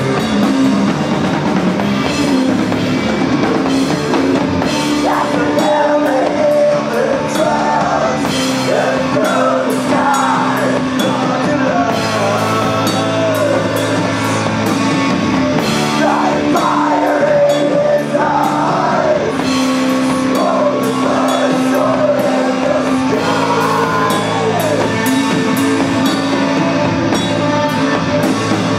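Live rock band playing: drum kit with cymbals, electric guitar and bass holding long low notes, and a singer's voice over them from about five seconds in until near the end.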